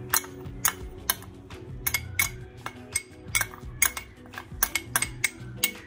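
A metal spoon scraping and tapping inside a small glass bowl, a quick irregular series of sharp clinks, as crushed almonds are knocked out of it.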